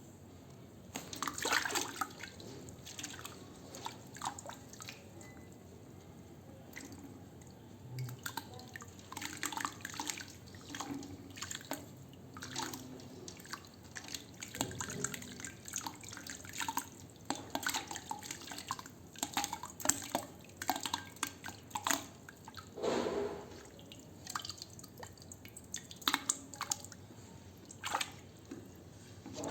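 Wet sand crumbling into water: irregular drips, small splashes and crackles, a few close together, with one larger splash near the middle.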